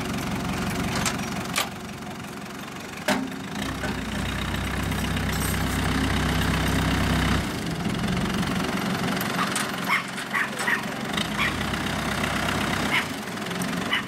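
Case 580B backhoe loader's engine running at idle, growing louder and deeper for about four seconds from roughly three and a half seconds in. Short clinks of chain being handled come and go over it.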